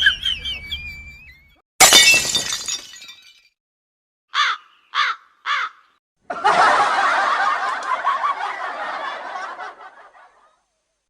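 A sequence of sound effects: a loud shattering crash with a brief ringing tail, then three short cries that fall in pitch, then several seconds of many overlapping voices that fade away.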